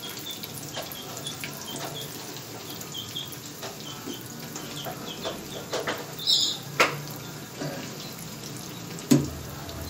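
Puris deep-frying in hot oil, a steady sizzle with small crackles, while a metal slotted spoon turns them and clicks against the frying pan, most sharply about seven and nine seconds in.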